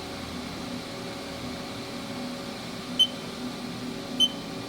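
Haas VF-1D CNC machining center's CT40 spindle running steadily at 1,000 RPM, a constant hum. Two short high beeps sound about three seconds in and again near the end.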